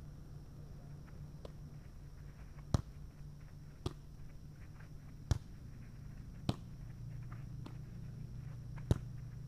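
Volleyball being passed back and forth: five sharp slaps of hands and forearms on the ball, a second or more apart, starting a few seconds in, over a steady low hum.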